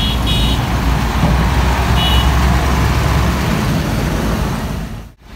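Large intercity bus's diesel engine rumbling low and close as the bus pulls into the yard, fading after about three and a half seconds, with brief high beeps twice. The sound cuts out sharply just before the end.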